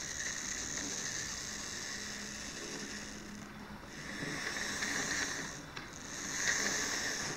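Märklin Mini Club Z-scale BR 89 model locomotive and wagons running on track: the tiny motor whirs and the wheels rattle over the rails. It gets louder twice, about four and six seconds in, as the train passes close. It runs through the turnout without stalling.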